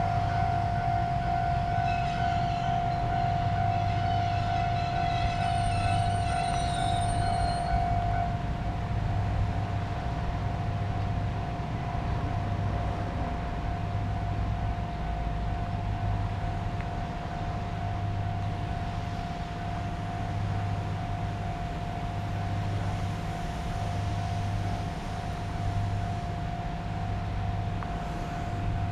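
Japanese level crossing's electronic warning bell ringing, one steady high tone that drops a little in level about eight seconds in, over a low pulsing hum. Scattered rattling sits on top of it for the first eight seconds.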